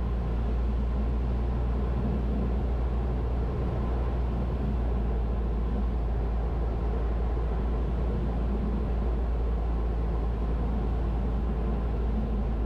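Cessna 172's piston engine and propeller droning steadily in cruise, heard from inside the cabin as a constant low hum with airflow noise.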